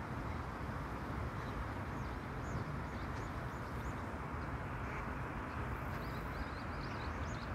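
Steady rushing of a flowing stream, with wind buffeting the microphone. Small birds chirp in quick high calls from about two seconds in.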